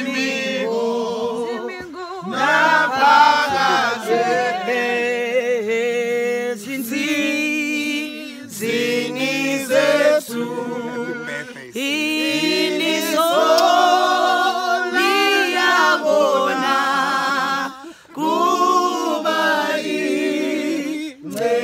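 A group of voices singing a gospel worship song together, unaccompanied, with short breaks for breath between phrases.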